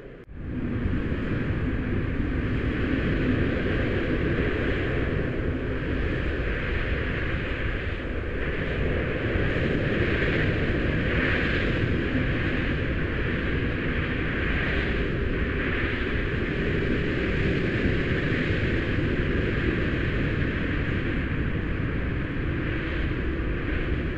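A steady low rumble with a hiss over it, swelling a little now and then.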